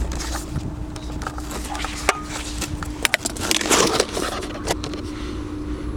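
Honda S2000 four-cylinder engine idling, heard from inside the cabin with its air intake lid removed: a steady low rumble and hum, with scattered sharp clicks and knocks and a brief rustling burst about three and a half seconds in.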